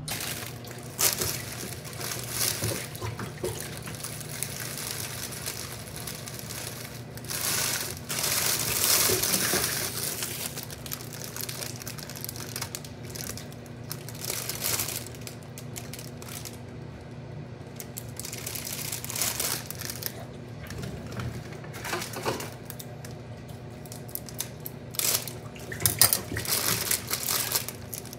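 Plastic flower-wrapping sleeve crinkling and rustling in bursts as a bouquet is handled, over a steady low hum. A sharper crack comes near the end.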